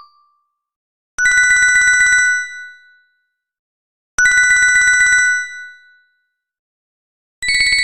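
LG KG110 mobile phone ringtone played through the Beatnik synth: a fast electronic trilling ring of about a second, sounding twice about three seconds apart, each with a short fading tail. A higher-pitched trill starts near the end.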